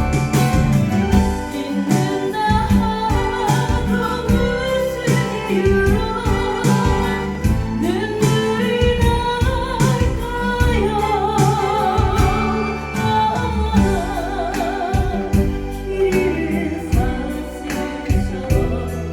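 A song with a woman singing, her held notes wavering with vibrato, over a band accompaniment with a steady beat.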